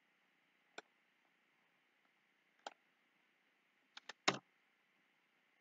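Scattered clicks of a computer keyboard and mouse while a dimension value is typed in: single clicks about one and nearly three seconds in, then a quick run of three at about four seconds, the last the loudest.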